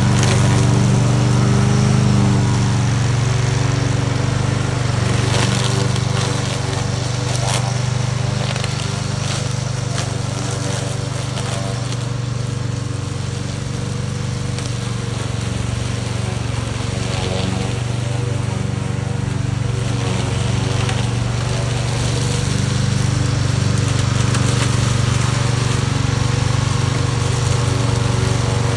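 Remote-controlled lawn mower running steadily at a constant pitch. It dips a little in level midway and comes back up near the end.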